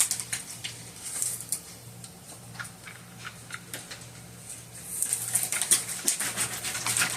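Small plastic parts of a phone-clip and LED-light mount being handled and twisted while a screw is tightened: scattered light clicks and scrapes that get busier about five seconds in.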